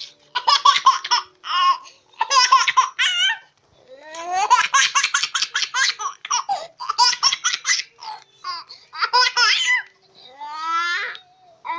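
Baby laughing in long runs of quick, high-pitched laughs broken by short pauses, with a longer drawn-out vocal sound near the end.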